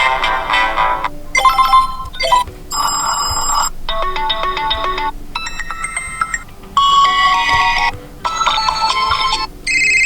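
Built-in ringtones of a TCL 405 smartphone played through its speaker in quick succession: about eight short electronic melodies, each about a second long, separated by brief gaps.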